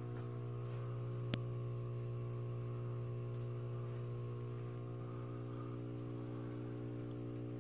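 Leslie Locke "Play-It-Again-Sam" DF-36 ceiling fan (Hong Kong-made Evergo) running, its motor giving a steady electrical hum. A single short click about a second in.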